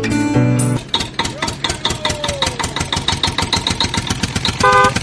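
Tractor engine chugging in fast, even beats, about eight a second, with a horn honk starting near the end. Plucked-string music plays for the first moment.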